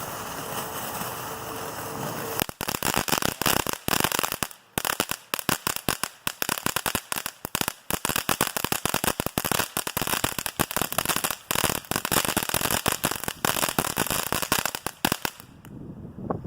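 Firework fountain spraying with a steady hiss, then, from about two and a half seconds in, its crackle finale: a dense run of many small sharp pops that dies away near the end.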